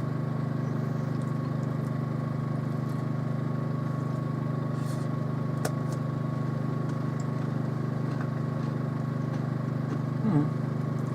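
A steady low hum fills the background, with a few faint crunches of a hard ration cracker being chewed. A short voiced 'mm' comes about ten seconds in.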